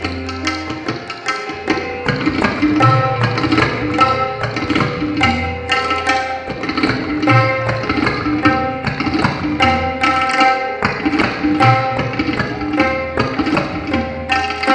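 Tabla played in fast, dense strokes, the bass drum booming under the crisp treble drum, over a repeating lehra melody that holds steady notes.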